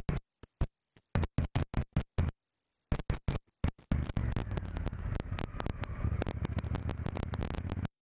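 Electronic background music: short stuttering pulses cut off sharply between them, then about four seconds in a continuous dense section heavy in the bass that stops abruptly near the end.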